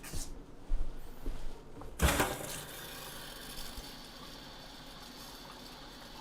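A few knocks and clicks, then about two seconds in a kitchen faucet is opened and water runs out in a steady hiss. The strong flow shows the water heater's clogged flapper has been cleared.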